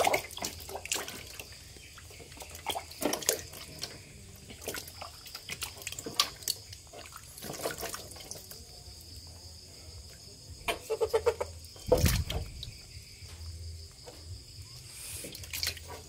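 Water splashing and sloshing in a plastic tub as hands grab and lift large frogs, with irregular splashes and drips. A heavier low thump about twelve seconds in is the loudest moment.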